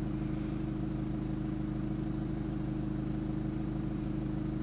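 Steady hum of a BMW 3 Series diesel engine idling, heard from inside the cabin.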